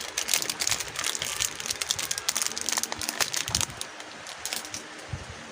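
Packaging of a speedcube being opened by hand: plastic wrap crinkling in quick, irregular crackles that ease off near the end.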